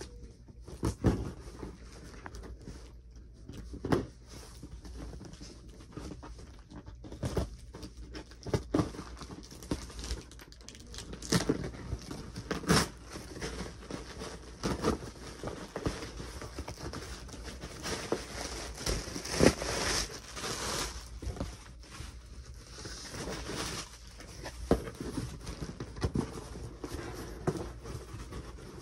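Cardboard shipping box being handled and opened by hand: irregular knocks, scrapes and rustles of cardboard flaps, with some tearing and crinkling.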